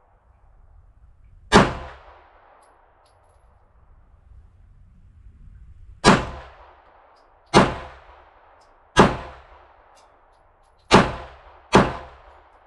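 Glock 19 9mm pistol fired six times at an uneven pace, each shot a sharp crack with a short echoing tail. One shot comes about a second and a half in, the other five from about six seconds on, the last two less than a second apart.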